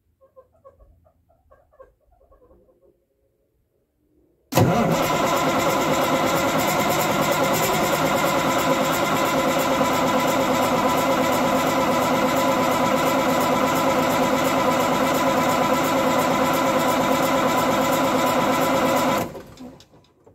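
Cummins Big Cam inline-six diesel turning over on its starter for about fifteen seconds with an even, steady pulsing, then stopping. It is cranking without catching after the rebuilt fuel pump install.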